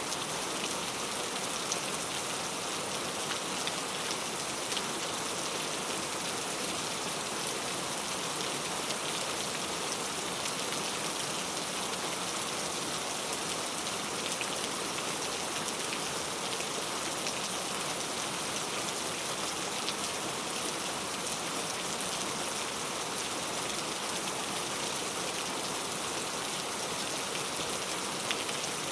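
Heavy rain falling steadily, an even hiss with scattered ticks of individual drops striking.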